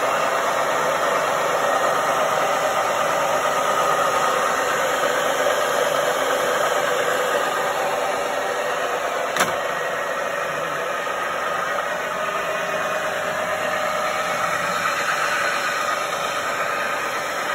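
Saut du Tarn J320 pillar drill/boring machine running: a steady machine hum with faint whining tones from its motor and gearbox. A single sharp click comes about nine and a half seconds in.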